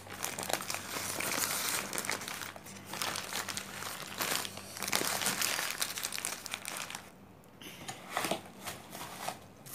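Paper food wrappers and a plastic takeaway bag crumpling and crinkling as leftover food is wrapped up and bagged. The rustling is dense for about seven seconds, then thins to a few scattered crinkles near the end.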